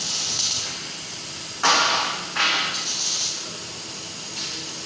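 CNC metal-cutting machine hissing steadily with gas or air, with two short, louder bursts of hiss about a second and a half and two and a half seconds in.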